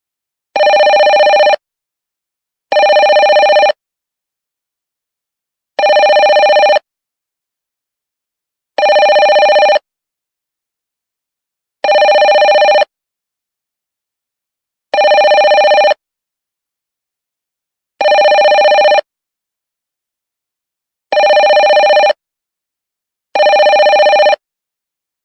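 Telephone ringing: nine separate rings, each about a second long with a fast trill, separated by gaps of silence of about two seconds.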